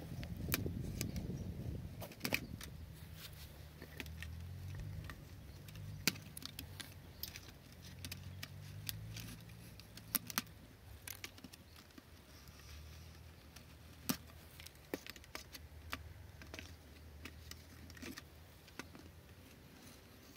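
Knife blade cutting and tapping on thin clear plastic strips and a plastic board: scattered sharp clicks and crinkles, over a low rumble in the background.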